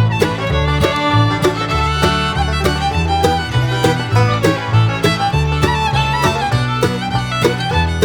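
Upbeat instrumental background music in a bluegrass style: fiddle over plucked strings, with a bass line stepping along on a steady beat.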